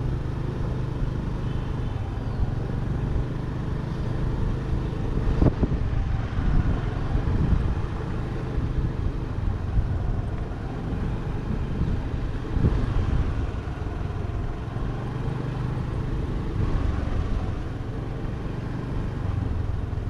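Car driving: steady engine hum with road and wind noise, and a single sharp knock about five seconds in.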